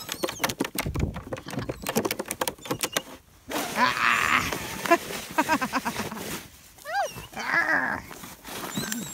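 German shepherd puppy attacking a metal snow shovel: rapid clicking and scraping of the blade for the first three seconds, then growling and whining, with one short rising-and-falling whine about seven seconds in.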